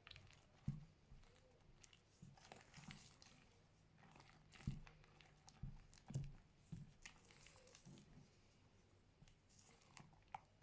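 Hands kneading and squishing fluffy slime: irregular soft squelches, small clicks and pops, and a few low thumps.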